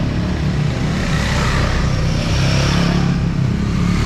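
Motorcycle engine running steadily, its low hum under a constant hiss.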